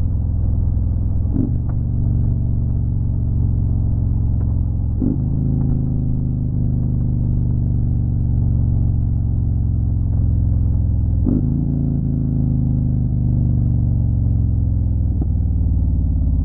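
Motorcycle engine running steadily at road speed, a low even drone with a few brief breaks in it.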